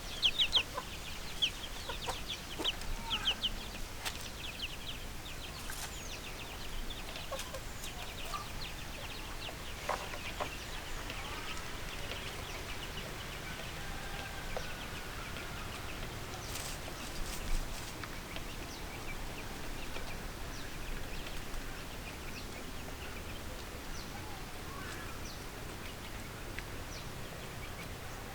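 Young chickens chirping in quick, high-pitched peeps, thick in the first few seconds and sparser after about ten seconds.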